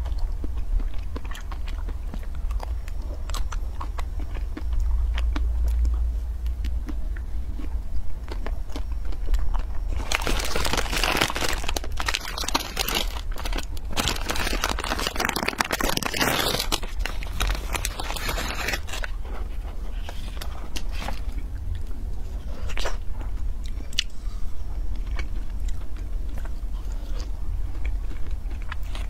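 Close-miked biting and chewing of ice-cream bars, with crunchy bites and scattered mouth clicks. From about ten seconds in, for roughly nine seconds, the loud crinkle and tear of a plastic ice-cream wrapper being pulled open.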